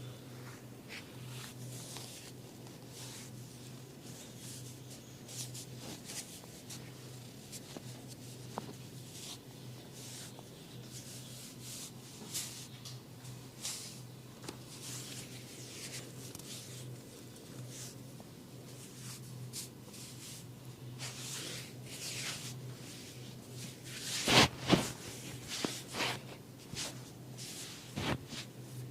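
Hands rubbing over skin during a head and face massage: a run of short scratchy strokes over a low steady hum. Near the end come a few loud sharp hits.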